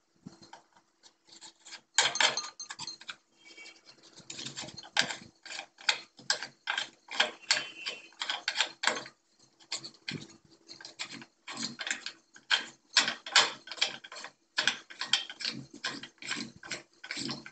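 Glass lamp shade and its plastic holder ring being twisted by hand onto a light-fixture socket: a long run of quick, uneven clicks and scrapes.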